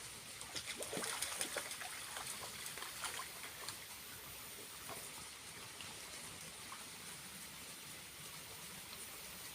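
Small waterfall trickling and splashing: a steady watery hiss with a cluster of splashes and drips in the first few seconds.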